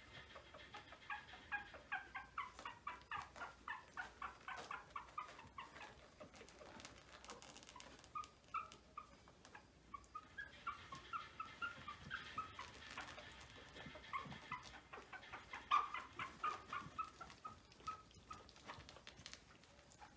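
Young Maltese puppies whimpering in quick runs of short, high squeaky cries, about three or four a second. One run lasts from about a second in to about six seconds, and another from about ten seconds to near the end.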